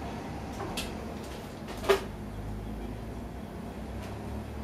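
Shop room tone with a steady low hum and a few faint clicks, broken about two seconds in by one sharp clack, like a cupboard or door knocking shut.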